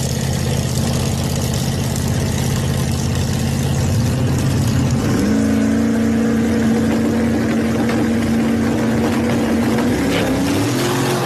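Drag car's engine running steadily on the start line, then stepping up to a higher, held rev about five seconds in, and climbing again as the car launches near the end.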